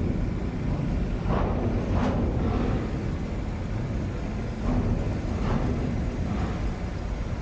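A car driving on the road: steady tyre and wind noise over a low engine drone, with a few brief louder swishes.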